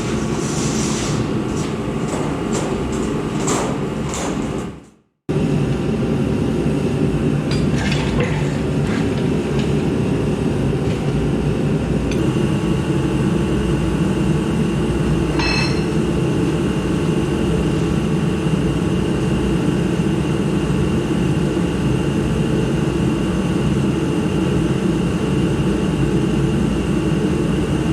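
Workshop heater running with a loud steady whoosh, while metal parts clink and tap now and then, several times in the first few seconds and a couple more later. The sound cuts out briefly about five seconds in.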